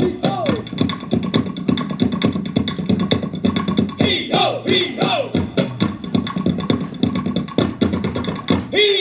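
Live ensemble music accompanying a stage dance: rapid percussive strikes under repeated sliding pitched notes.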